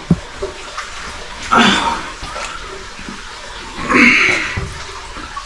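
Water sloshing and splashing as a person moves through waist-deep water in a cave passage, in two louder surges about a second and a half and four seconds in, with a short knock at the start.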